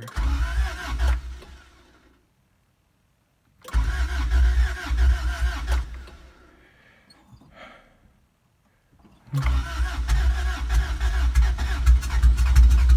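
Starter motor cranking a freshly installed Honda H23 2.3-litre four-cylinder engine in three separate bursts without it starting. It is turned over to build oil pressure before the first start.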